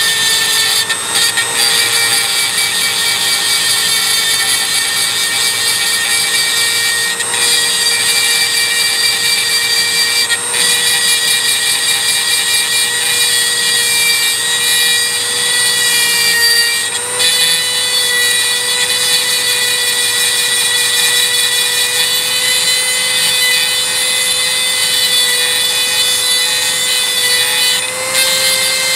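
Handheld rotary tool running at high speed with a steady high whine as its small grinding bit works against the steel of an adjustable wrench. The whine dips briefly and shifts slightly in pitch a few times as the bit bears on the metal.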